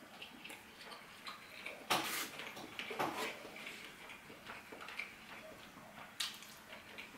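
Eating sounds: quiet chewing with faint wet mouth clicks, and a few sharper clinks and scrapes of a fork and knife on a dish about two, three and six seconds in.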